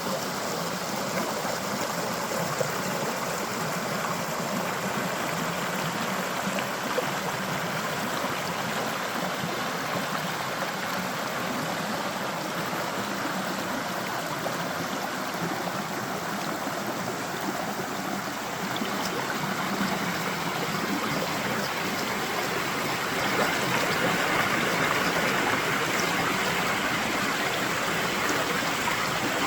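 Creek water flowing and splashing steadily, growing a little louder about three-quarters of the way through.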